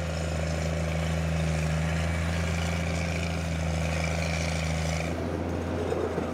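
Tracked snow groomer's diesel engine running steadily with a low, even drone; the note changes about five seconds in.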